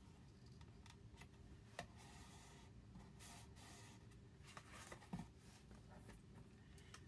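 Faint rustling of paper being handled as a patterned paper panel is pressed onto a small paper box, with two light taps, one about two seconds in and one about five seconds in.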